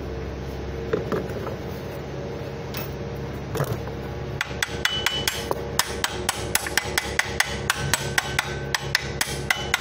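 Quick, evenly spaced metallic taps, about four a second, beginning about four seconds in, with a few isolated clinks before: a tool tapping the idler timing gear into place on the front of an Isuzu diesel engine.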